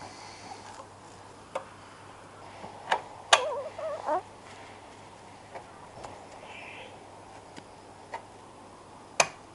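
Scattered light clicks and knocks of hard plastic and metal as a BMW E39 tail light housing is pushed back into place and its retaining nuts are threaded on by hand. The sharpest knock comes about three seconds in, followed by a short wavering pitched sound.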